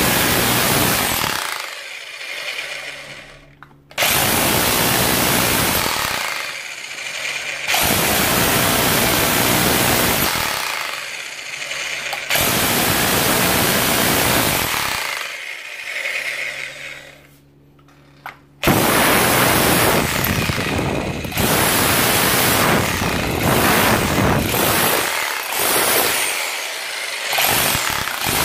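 Parkside PBH 1500 F6 SDS hammer drill in chisel-only mode with a flat chisel, hammering into a wall. It runs in bursts of a few seconds and stops briefly between them, with a longer pause a little past halfway.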